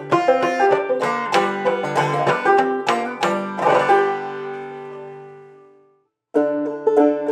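Clawhammer banjo playing a brisk run of plucked and brushed notes. The notes ring out and fade about four seconds in, there is a brief silence, and the playing picks up again near the end.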